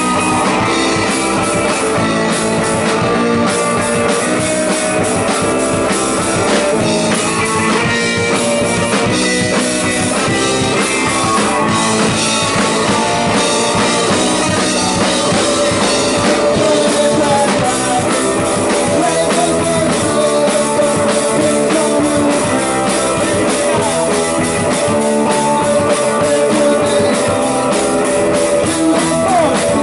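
Rock band playing with guitar and drum kit, a steady beat with no clear vocals.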